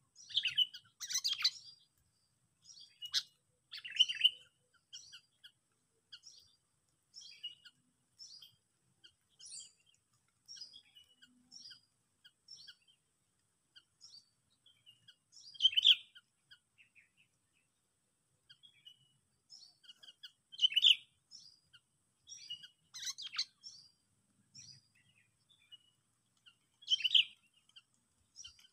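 Sooty-headed bulbul chirping: a steady string of short calls, with louder bursts every few seconds.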